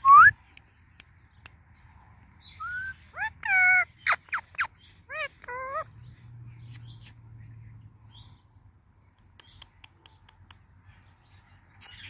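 Indian ringneck parakeet calling: a short, loud rising squawk right at the start, then a run of short bending calls mixed with sharp clicks about three to six seconds in, and a few faint clicks later.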